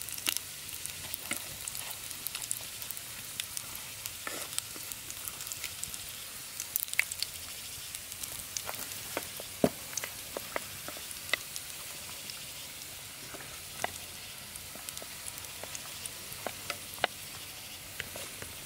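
Food frying in a pan: a steady sizzle with frequent sharp pops and crackles.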